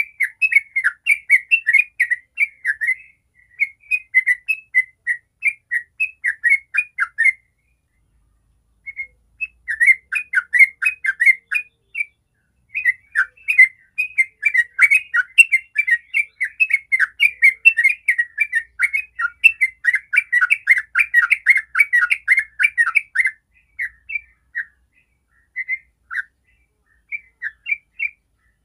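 Yellow-vented bulbul singing a fast chattering run of bubbly notes, the long 'ropel' song. It breaks off about 7 seconds in and resumes near 9 seconds, runs unbroken for about ten seconds from the middle, then thins to scattered phrases near the end.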